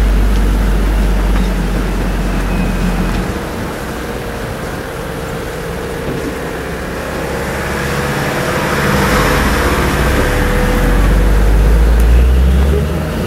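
Engine of a game-drive vehicle running, a loud low rumble that eases off after about three seconds and swells again in the second half.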